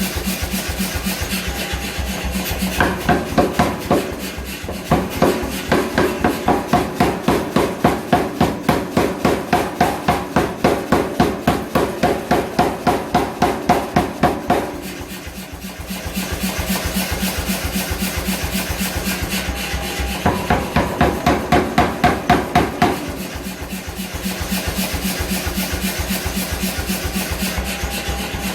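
Blacksmith's hammer striking steel on an anvil in two long runs of regular blows, about two or three a second, over a steady machine noise.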